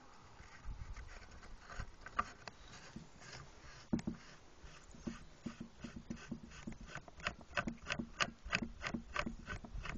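Handling noise of a TAC65 suppressor being screwed onto the threaded muzzle of a .22 rifle: light metallic clicks and rubbing, scattered at first with one sharper click about four seconds in, then a quicker run of about three to four clicks a second as it is turned on snug.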